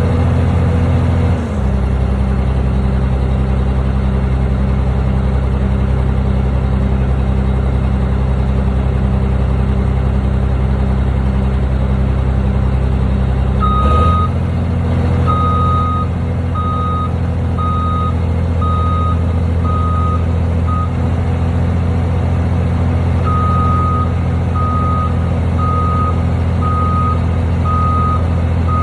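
Heavy construction machine's engine running steadily, its note shifting about a second and a half in and again about halfway through. From halfway a reversing alarm beeps at an even pace, stops for a couple of seconds, then starts again.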